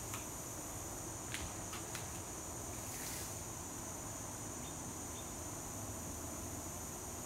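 Steady high-pitched insect chorus droning outdoors, with a few sharp clicks about a second and a half in and a brief hiss near three seconds.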